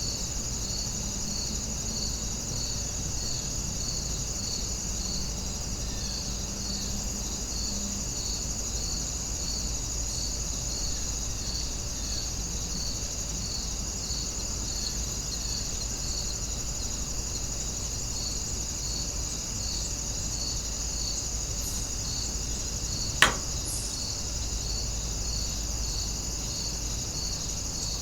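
Night insect chorus: a steady high trill with regular chirps about twice a second over it, and one sharp click near the end.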